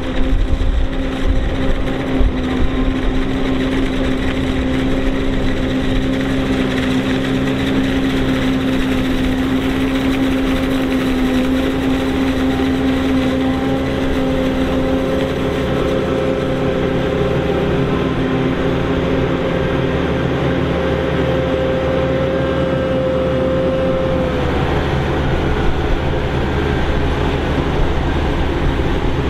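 John Deere self-propelled forage harvester chopping maize: engine and chopping and blowing gear running under load with a steady, unchanging pitch.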